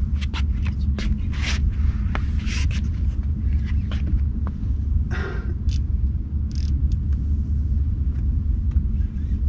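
Boat engine running steadily, a low rumble, with scattered short clicks and brief rustles over it.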